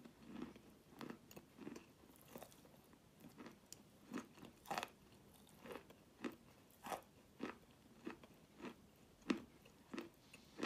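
Wet chalk being bitten and chewed with the mouth closed, heard close up. Short, sharp crunches come irregularly, about one and a half a second, with faint chewing between them.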